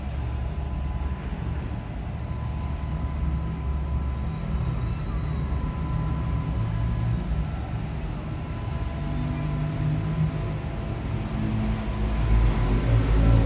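Steady low rumble of a running engine, with a faint steady high whine over it; the rumble grows louder near the end.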